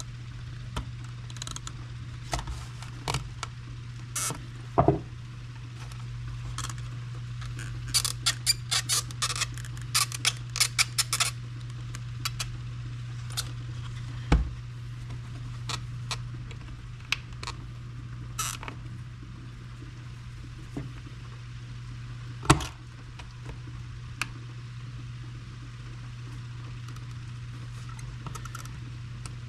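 Scattered clicks and taps of needle-nose pliers and hard plastic as the tabs on a Kawasaki KRX fuel pump module's filter foot are squeezed. There is a quick flurry of clicks about eight to eleven seconds in and a sharper knock a little after twenty-two seconds, over a steady low hum.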